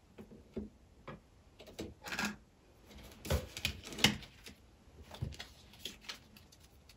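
Irregular light clicks and taps, a dozen or so at uneven intervals, a few louder ones around the middle.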